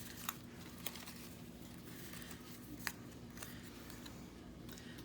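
Light handling of craft paper: a few soft, sharp clicks and faint rustling over a low steady hum.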